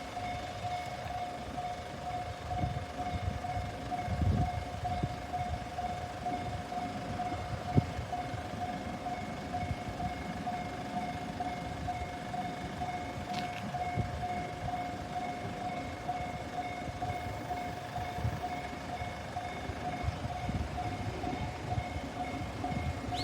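Japanese level-crossing warning bell ringing: a steady electronic bell tone repeating over and over, with a low rumble underneath and a couple of thumps in the first third.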